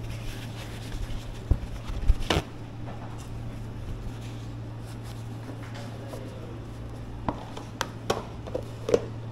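Knife and hands working salmon on a cutting board: scattered knocks and taps, the loudest a little over two seconds in and a few more near the end, over a steady low hum.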